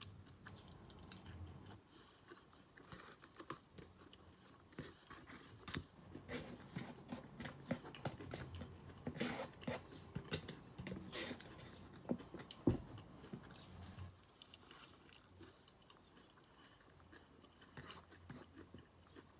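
Close-miked chewing and biting of Panda Express takeout food, with irregular sharp mouth clicks and crunches, busiest in the middle.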